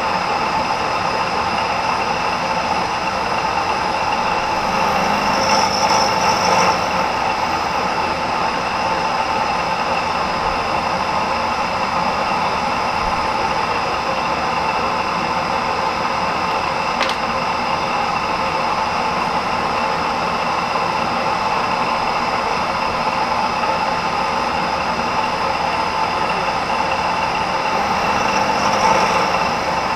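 Vertical milling machine running steadily: a constant machine whine over a hum, a little louder for a moment about six seconds in and again near the end, with a single sharp click about seventeen seconds in.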